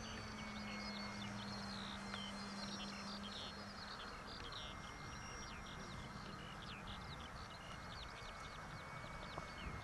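Birds chirping continuously in quick short notes over faint outdoor wind noise, with a distant electric RC model plane's motor humming steadily and fading out about halfway through.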